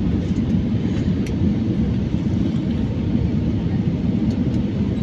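Steady low rumble of airliner cabin noise during the descent for landing: engine and airflow noise heard from inside the passenger cabin.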